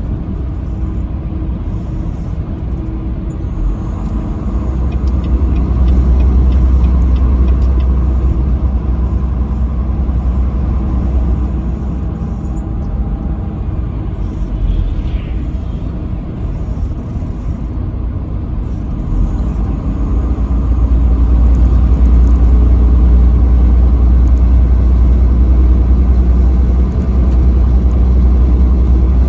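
Truck driving on the interstate: a steady low rumble of engine and road noise. It grows louder for several seconds a few seconds in, and again past the middle.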